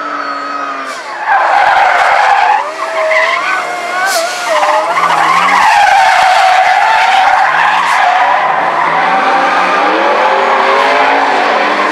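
A drift car sliding on asphalt: its tyres squeal in long, wavering tones over the engine revving up and down. It gets louder about a second in.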